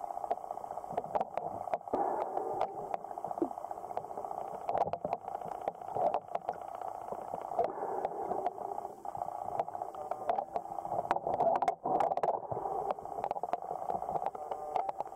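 Muffled underwater sound picked up by a submerged camera: a dull, steady wash of water noise with bubbling and many small scattered clicks.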